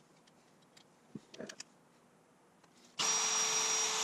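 A few faint handling clicks, then about three seconds in a Milwaukee M18 cordless drill starts and runs at a steady speed with a constant whine as its twist bit drills a hole through a painted sheet-metal guard.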